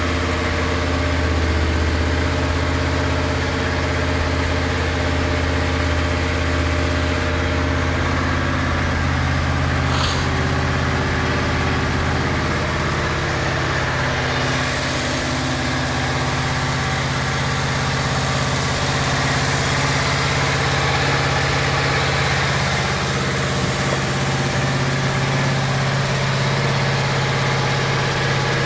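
Yamaha Royal Star Venture 1300's V4 engine idling steadily through its stock dual exhaust, with a brief click about ten seconds in.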